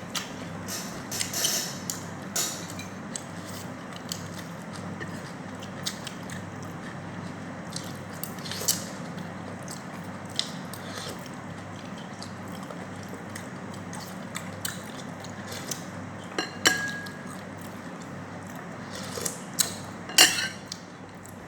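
Eating sounds: chewing, with scattered short clicks and taps of utensils against a plate, the loudest about 1.5, 8.5, 16.5 and 20 seconds in, over a steady low hum.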